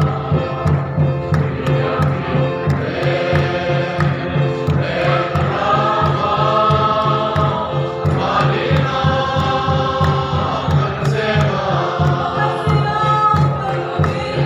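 A church congregation singing a Mizo hymn together in chorus, over a steady, even drum beat.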